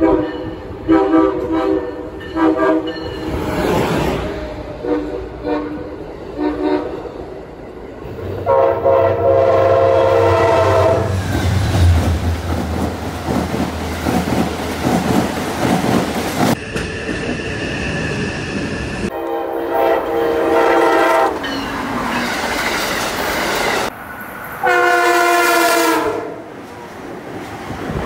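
Passenger trains passing through a station and sounding their horns. There are several blasts, a long one about ten seconds in, over the rumble and clatter of wheels on the rails, and the sound cuts abruptly from one passing train to the next. An Amtrak Acela is the train approaching at the start.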